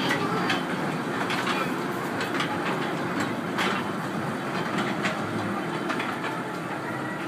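Small funfair ride-on train running along its track: a steady rumble with irregular sharp clicks from the wheels on the rails.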